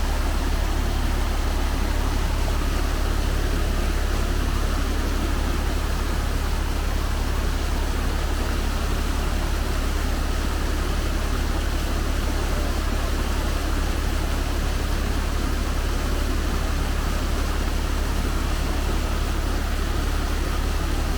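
Diesel engine running steadily, with a strong, unchanging low rumble.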